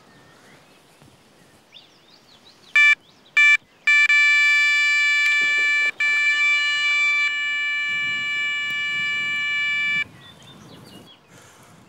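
Electronic carp bite alarm: two short beeps, then a steady unbroken tone for about six seconds as a fish runs with the bait, cutting off when the rod is lifted.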